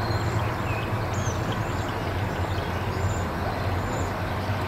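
Steady low outdoor rumble with small birds chirping, short high calls every second or so.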